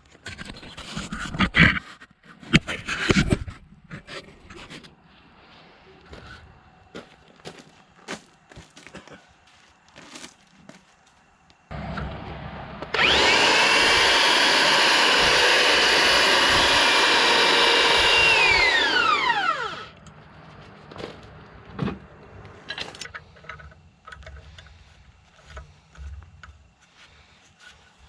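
RIDGID 600-I hand-held power drive cutting a thread on iron pipe held in a pipe vise, run dry without thread-cutting oil: the motor starts abruptly, runs steadily for about six seconds, then winds down with a falling whine. Before it, clinks and rattles of metal tools being handled; after it, a few light clicks.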